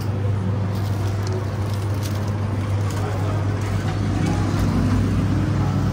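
Outdoor street noise with a steady low hum and distant traffic.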